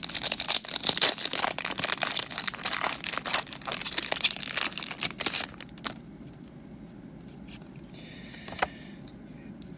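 Foil Pokémon TCG booster pack wrapper being crinkled and torn open, a dense crackling that lasts about five and a half seconds. It then goes much quieter, with one sharp tick near the end.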